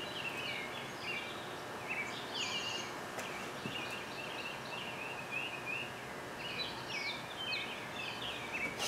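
Songbirds chirping outside, a continual run of short, quickly falling chirps, over a faint steady background hum.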